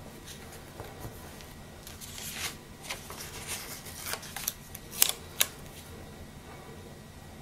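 Paper rustling and crinkling from stickers and a planner page being handled, followed by a run of short sharp clicks and taps, the two loudest about five seconds in.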